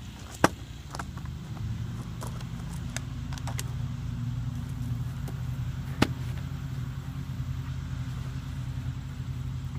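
An engine running steadily, a low hum that grows louder about a second and a half in, with two sharp knocks, one about half a second in and one about six seconds in.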